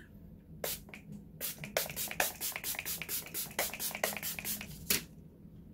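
Hand-pumped fine-mist spray bottle spritzing the face: two single sprays, then a quick run of short sprays, about six a second, that stops about five seconds in.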